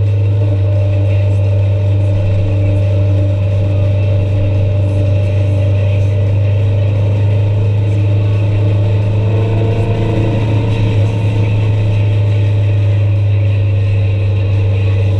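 A vehicle's engine and drivetrain running at steady speed on the road, giving a constant low drone with little change in pitch.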